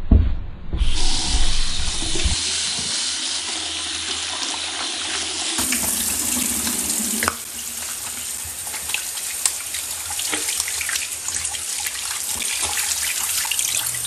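Water running from a tap into a sink, with splashing as someone washes their face. The water sound changes about five and a half seconds in.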